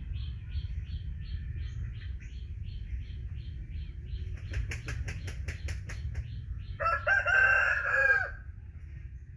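Chickens in the background: a regular high chirp about three times a second, then a quick run of sharp clucks, then a rooster crowing for about a second and a half near the end, the loudest sound. A steady low rumble underneath.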